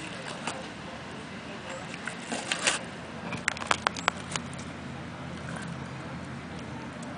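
Sulcata tortoise biting and crunching a corn cob: a cluster of sharp crunches and snaps about two to four seconds in, over a steady low hum.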